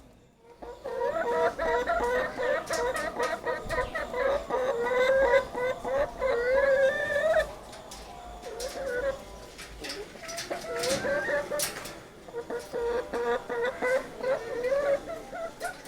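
A caged hen clucking, with a dense run of calls over the first several seconds, quieter calls after that, and more clucking from about ten seconds in. A few sharp clicks come in between.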